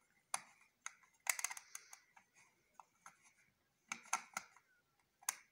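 Hard plastic parts of an Epson ink-tank printer's print-head carriage clicking and rattling as its cover is pried and worked loose, with a screwdriver among the parts. The clicks are sharp and scattered, with a quick cluster just over a second in and another about four seconds in.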